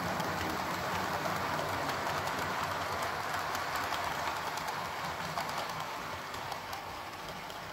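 Model railway diesel locomotive and coaches running past: a steady whirr of motor and wheels on the track with light clicking, fading near the end as the train moves away.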